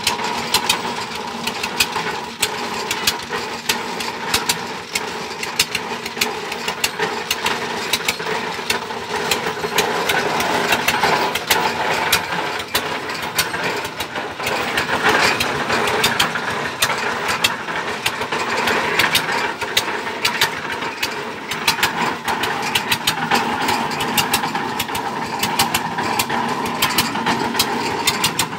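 Engine of a tube-well boring rig running steadily, with frequent sharp clicks over its drone.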